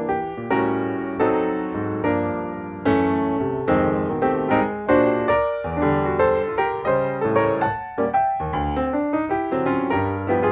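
Background music: solo piano playing a slow, gentle melody, each note struck and left to fade.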